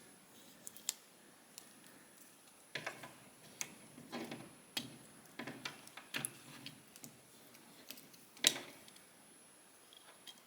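Scattered small plastic clicks and handling noises from a WarGreymon action figure's joints as it is twisted and posed. There are a few quiet clicks early on, a busier run of them in the middle, and one sharper click near the end.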